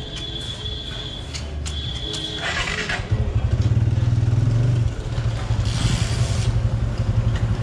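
Sport motorcycle engine running at idle with a steady low pulse that gets louder about three seconds in as the bike pulls forward.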